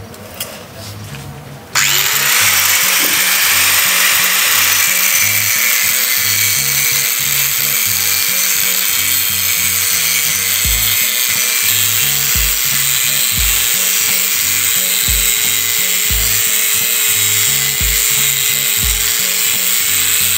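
Electric angle grinder grinding a metal caliper bracket clamped in a vise, trimming it so it clears the brake disc. It starts suddenly about two seconds in and runs steadily, a hissing grind with a steady motor whine through it.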